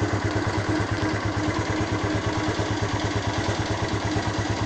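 Honda Phantom motorcycle engine idling steadily with an even, regular beat while it warms up.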